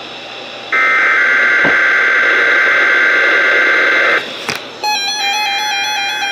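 Weather radio broadcast of a SAME digital alert header for the required weekly test: a buzzing burst of two alternating data tones, starting about a second in and lasting about three and a half seconds. A sharp click follows, then synthesized keyboard music begins near the end.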